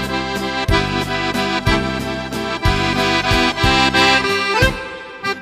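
Instrumental music with a steady beat: sustained melody notes over regular drum and bass strikes.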